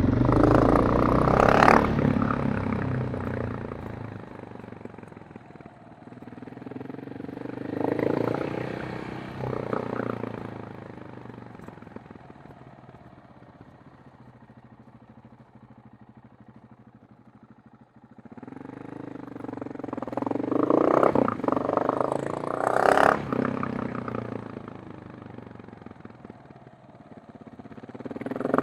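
KTM 690 Enduro R's single-cylinder engine and exhaust, the pitch rising and falling as the throttle changes. It is loud at the start, swells again about eight seconds in and most strongly from about twenty to twenty-four seconds in, and fades low in between.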